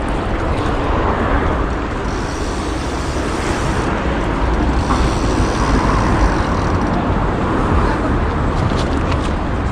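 Steady city traffic and road noise heard from a moving bicycle, under a strong low rumble of wind on the microphone.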